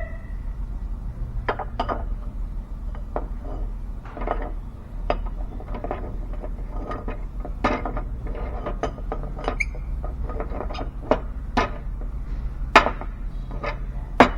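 Irregular clicks, taps and clinks of steel engine parts being handled: diesel pistons, wrist pins and connecting rods being oiled and fitted together. A steady low hum runs underneath.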